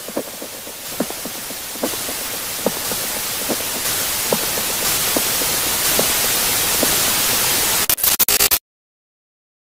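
Television-style static hiss, growing steadily louder over about eight seconds, with soft regular knocks a little more than once a second beneath it. Near the end the static breaks into a stutter and cuts off to dead silence.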